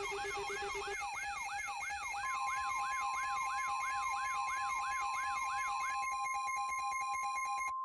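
Electronic emergency-alert siren sweeping rapidly up and down, about three times a second, over steady electronic tones; a steady high beep joins about two seconds in. Near the end the sweeping stops, rapid pulsing takes over, and everything cuts off abruptly, leaving a single steady tone.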